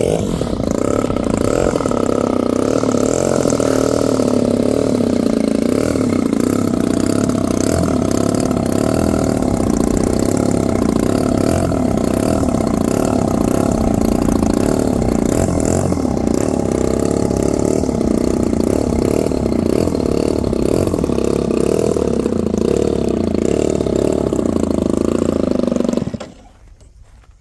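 EPHIL 76cc twin-cylinder model aircraft engine running steadily, its pitch wavering a little, then cutting off abruptly near the end.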